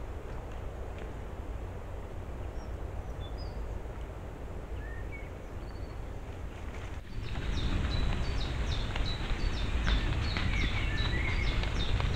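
Forest ambience from a trail camera: a steady hiss and low rumble with a few faint short bird chirps. About halfway through it gets suddenly louder, with rapid clicks and rustles of red deer grazing and stepping in the leaf litter right beside the camera, and more bird chirps.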